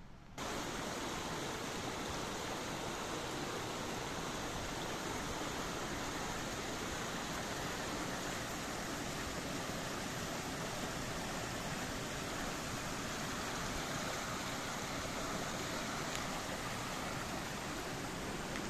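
Steady rushing of flowing water, an even noise without pauses that starts abruptly about half a second in.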